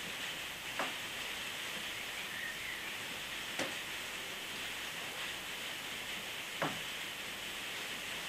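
Steady hiss of room and recording noise, with three short rustling knocks about three seconds apart as two people kneel and bow down to a carpeted floor in prostration.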